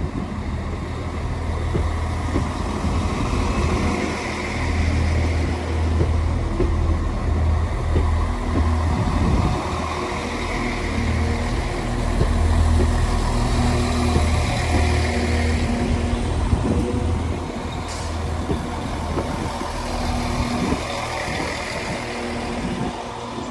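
Class 196 diesel multiple unit's underfloor diesel engines running with a steady low rumble as the train rolls slowly past along the platform on arrival. A brief sharp click about three-quarters of the way in.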